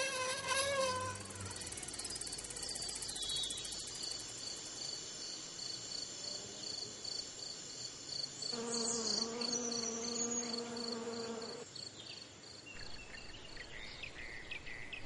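Crickets chirping in a steady, even pulse of high chirps, about two to three a second. A steady low buzz joins for about three seconds midway.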